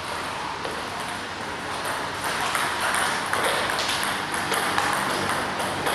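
Table tennis ball clicking back and forth, off bats and table, in a rally at an irregular rally pace, over steady background noise.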